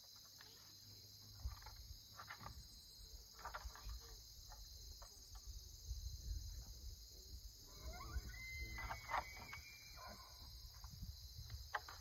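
Steady chorus of crickets, with scattered faint clicks. About eight seconds in, a distant bull elk bugles once: a rising whistle that climbs and holds high for about a second and a half.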